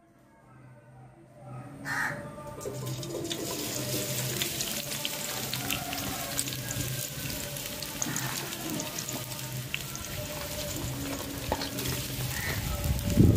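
Sliced onions sizzling and crackling in hot oil in a steel pot: the onion-frying stage of a biryani base. The sound builds up over the first two seconds, and there is a louder clunk near the end.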